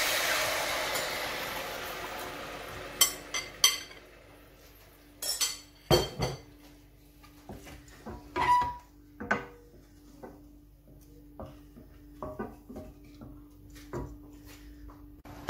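Tamarind pulp poured into hot oil in a steel pan sizzles, the hiss fading away over the first few seconds. Then scattered knocks and clinks of utensils against the pan and bowl as the sauce is stirred.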